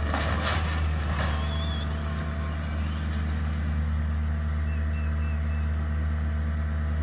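A large engine, likely a truck or other heavy machinery, running steadily at idle with an even low hum. Several short cracking or rustling noises come in the first second or so.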